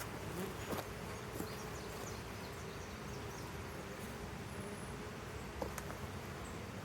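Honey bees buzzing steadily around an open hive, with a few light clicks.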